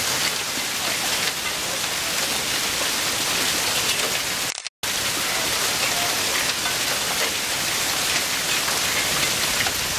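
Hail storm: hailstones and rain pelting down in a steady, dense hiss, with a brief total dropout just under five seconds in.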